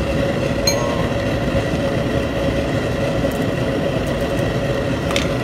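Steady hum and rumble of kitchen equipment running over a pot of rice at the boil, with a short clink about a second in.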